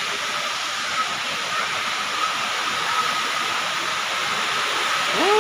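Steady rush of water from the Elephant Falls waterfall pouring into its pool. Near the end, a brief pitched call rises and falls.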